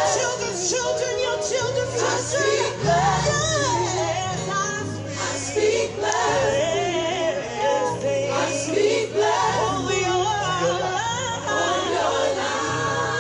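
Gospel music: a choir and singers over a bass line of long held notes that change every second or two.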